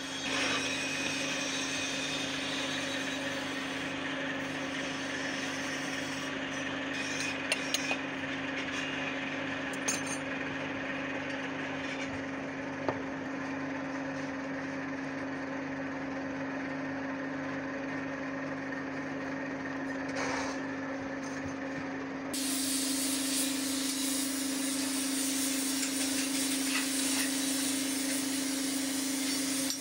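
A steady motor hum, with a few soft knocks as the damp sand mould is worked by hand. About two-thirds of the way in, the sound jumps to a louder, even rushing hiss from the open furnace fire heating a crucible of brass.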